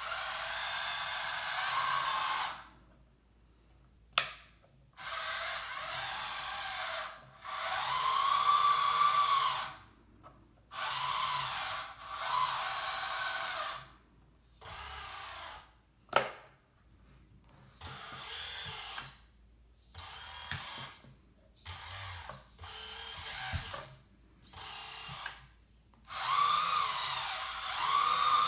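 Electric motors of a 1/14 scale RC hydraulic tracked skid steer loader, its brushless-driven hydraulic pump and track drive, whirring in about eleven short bursts of one to three seconds each, pitch rising and dipping as the controls are worked. Two sharp clicks stand out about 4 and 16 seconds in.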